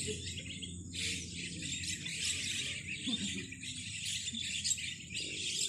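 A large flock of starlings chattering and calling all together: a dense, unbroken mass of high twittering.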